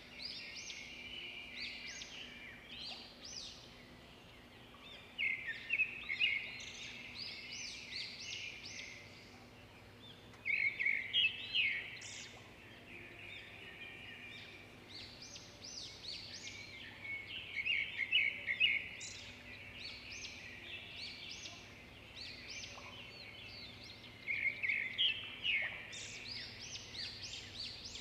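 Small birds chirping and twittering steadily, with louder bursts of rapid calls about every six or seven seconds, over a faint steady hum.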